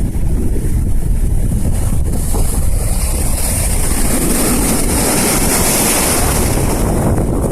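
Sea waves with strong wind buffeting the microphone. A wave's rushing hiss swells from about three seconds in and eases off near the end.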